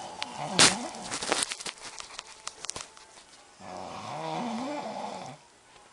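A man snoring in his sleep. A loud, sudden snort comes about half a second in, followed by a run of crackling clicks. Past the middle comes one long snore of nearly two seconds, with a wavering pitch.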